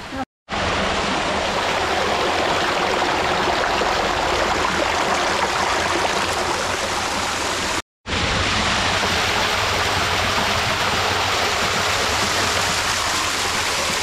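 Small waterfall splashing down over boulders: a steady, close rush of falling water, broken twice by a brief silence.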